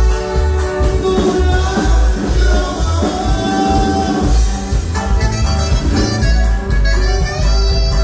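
Norteño band music played loud: an accordion melody of held, stacked notes over a steady, even bass beat.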